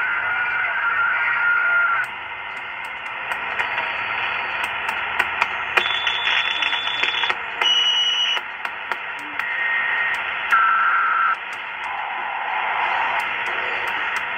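Super Star 2000 CB radio hissing with static through its speaker as the channel selector is stepped through the 27 MHz band, the selector clicking with each step. Short steady whistling tones at different pitches come and go on some channels.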